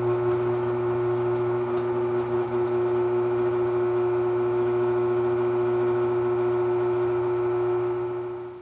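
Benchtop drill press running, a steady motor hum, while drilling holes through steel flat bar; the motor winds down near the end.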